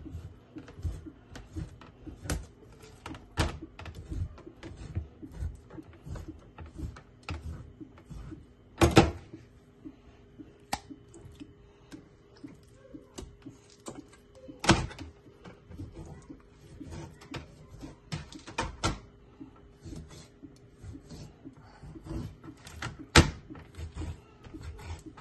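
Large kitchen knife cutting raw chicken on a plastic cutting board: irregular taps and knocks of the blade against the board, with three heavier chops about nine, fifteen and twenty-three seconds in.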